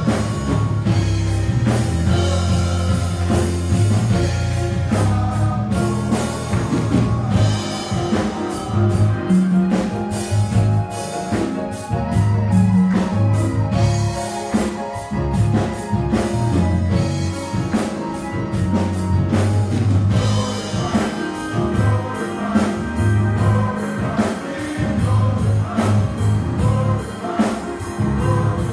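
Male gospel chorus singing, backed by keyboards and a drum kit, with the drums keeping a steady beat.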